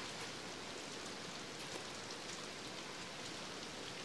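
Steady rain falling: an even hiss that holds level throughout, with no other sound standing out.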